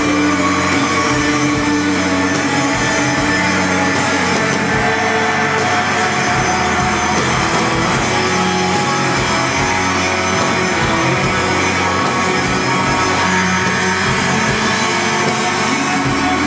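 Live rock band playing loud and steady on electric guitars, bass guitar and a drum kit.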